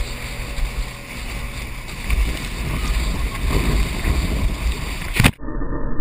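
Wind buffeting and water rushing and splashing against a GoPro on an inner tube towed fast behind a boat, with a heavy low rumble that grows louder about two seconds in. About five seconds in the sound breaks off sharply and turns muffled, with the high end gone.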